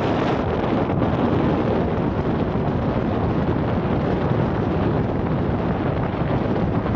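Steady wind noise on the microphone on the open deck of a ferry under way, an even rushing that reaches down into a low rumble.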